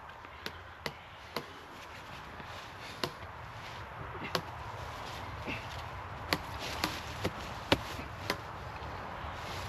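Single nylon hammock and its suspension taking a heavy man's weight as he sits in and lies back: about ten sharp clicks and creaks, the loudest coming in the second half as he lifts his legs in, over a soft rustle of fabric.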